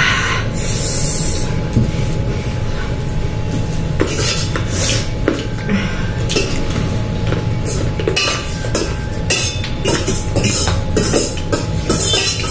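Metal forks clinking and scraping against metal plates as two people eat noodles, with many short irregular clicks over a steady low hum.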